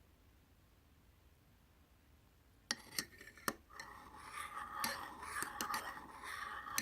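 Quiet at first, then about two and a half seconds in a few sharp clicks and clinks, followed by scraping and rustling with more scattered clicks, typical of kitchen utensils and glassware being handled.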